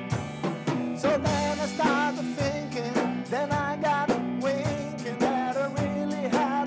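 Rock band playing: drums keep a steady beat about twice a second under bass and chords, with a bending, wavering lead melody on top.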